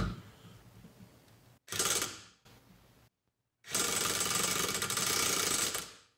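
Cordless impact wrench hammering on a rear differential's pinion nut in two short bursts, a brief one about two seconds in and a longer one of about two seconds near the end. The nut is being run down in small steps to crush the sleeve and set the pinion bearing preload, which still reads zero.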